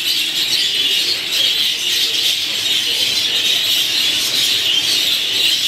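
A large flock of exhibition budgerigars chattering and warbling all at once, a steady, dense, high-pitched chorus.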